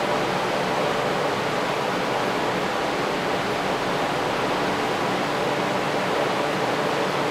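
Electric fans of a tornado-simulator rig running at high speed, a steady rush of moving air with a faint motor hum and no change in level.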